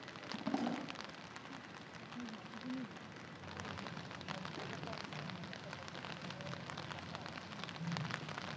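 Rain falling and dripping onto hard surfaces as a steady patter of many separate drops.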